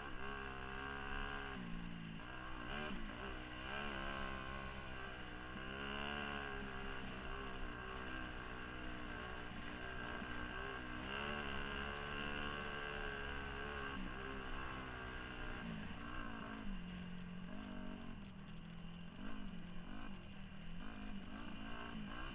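A 2002 Yamaha YZ250F's 250 cc four-stroke single-cylinder engine being ridden hard, its pitch rising and falling with throttle and gear changes. From about two-thirds of the way in it runs lower, with short blips of throttle.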